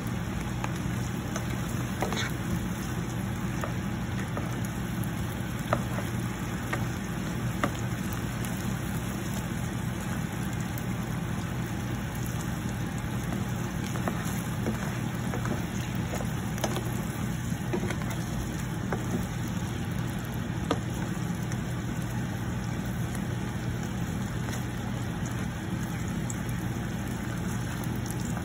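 Whole shell-on shrimp sizzling and bubbling in sauce in a nonstick pan, with a plastic spatula clicking and scraping against the pan now and then, over a steady low hum.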